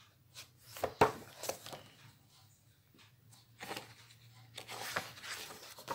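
Paper pages of a colouring book being handled and turned: a few sharp rustles and taps in the first second and a half, the loudest about a second in, then longer swishing rustles later on.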